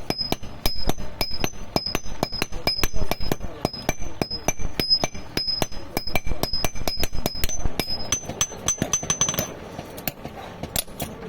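Rapid hammer blows on iron on an anvil, forging nails by hand. Each strike has a high metallic ring, and the ring alternates between two pitches. The hammering stops briefly near the end, then starts again.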